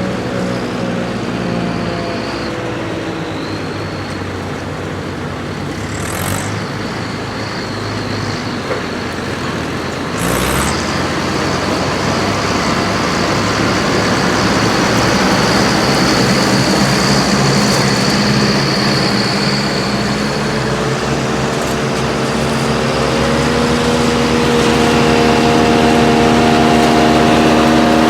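Farm tractor engines running under load, with a steady high whine through the middle and an engine note that grows louder in the last few seconds.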